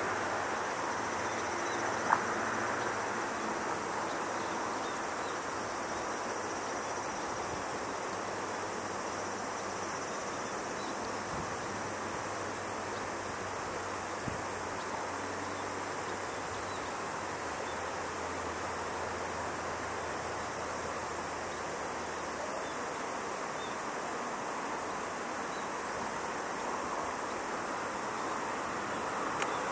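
Steady outdoor background hiss with faint, high insect trilling, and a single sharp click about two seconds in.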